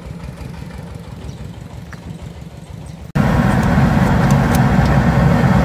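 Diesel engine of a mobile rice huller running steadily at a distance. About three seconds in, a sudden cut to close by: the rice-milling machine running much louder, with scattered sharp ticks over its rumble.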